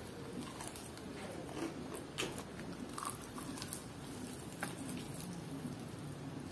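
A person biting into and chewing a crispy-coated fried chicken drumstick, with irregular sharp crackles as the coating breaks.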